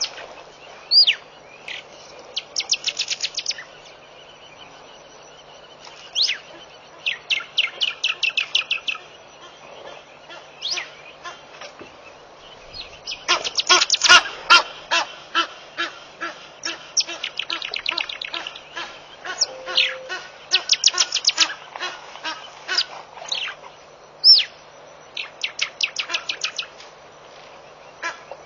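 Wild birds calling: several runs of quick, evenly spaced high notes and a few short falling whistles, with a louder, denser stretch of calls about halfway through.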